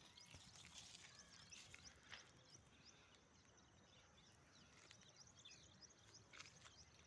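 Near silence: quiet outdoor ambience with faint, scattered high chirps and a few soft ticks.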